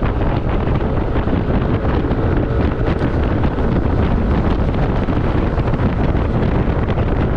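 Steady wind noise on the microphone of a moving motorcycle, with vehicle and road noise underneath.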